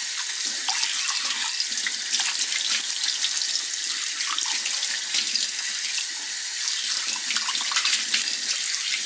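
Kitchen faucet running into a stainless steel sink, the stream splashing off a ceramic bowl being rinsed by hand. A steady rush of water with small splashes and clicks throughout.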